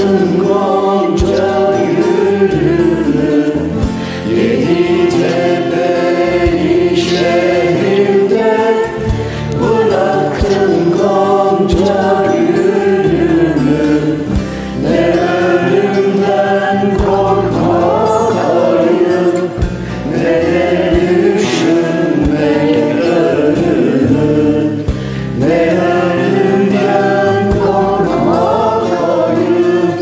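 Several voices singing a Turkish song together over a karaoke backing track, phrase after phrase with short breaths between.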